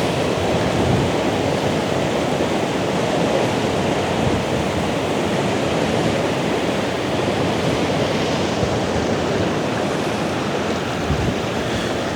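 Waterfall in spate: a steady, even rush of falling water.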